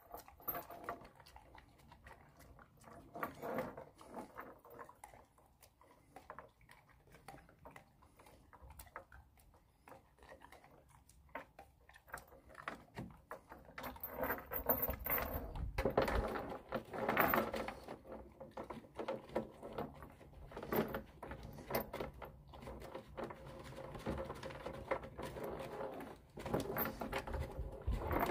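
Jindo dog eating from a plastic food bowl: a run of small clicks and crunches, with its tether chain clinking on the wooden deck. The sounds grow busier and louder about halfway through.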